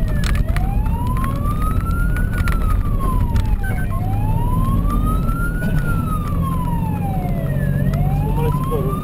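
Fire engine's wailing siren, sweeping slowly up and falling back about every three and a half seconds, heard from inside the cab over the truck's engine and road noise.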